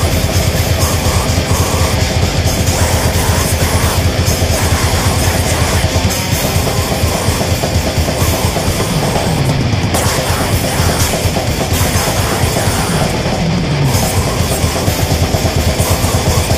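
Loud, dense heavy metal music: distorted guitars and bass over fast, continuous drumming, with no breaks.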